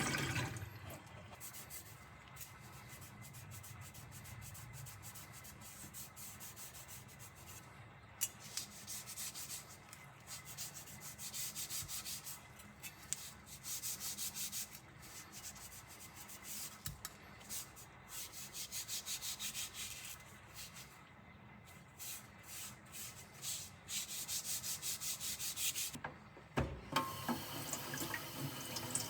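An abrasive is rubbed rapidly back and forth over the rusty steel blade of a Japanese nakiri knife to remove rust, in runs of quick strokes with short pauses. A tap starts running near the end.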